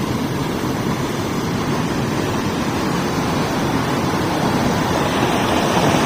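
Reservoir outflow pouring steadily over a small concrete weir into a canal: a mini waterfall, the water flowing non-stop.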